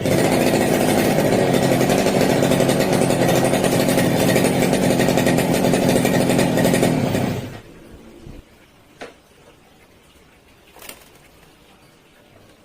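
Brush cutter's small engine running loud and steady at high speed, then shutting off about seven and a half seconds in. Two faint clicks follow.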